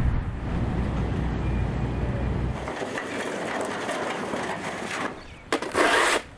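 Outdoor background noise: a low engine-like rumble with a steady hum for the first few seconds, then an even hiss, and a loud rushing noise lasting under a second near the end.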